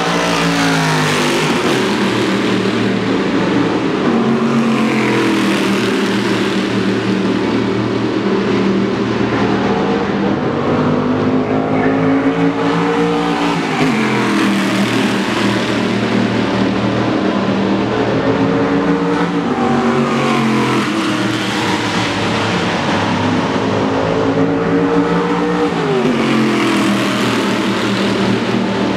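Stock car racing engines, 6,200 cc V8s, running hard at speed. The engine note climbs slowly under acceleration and drops steeply three times: about a second in, at about fourteen seconds and at about twenty-six seconds.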